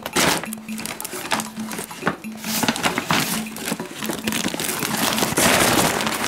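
Paper packaging crinkling and rustling as it is handled and unwrapped, loudest about five seconds in, over background samba music.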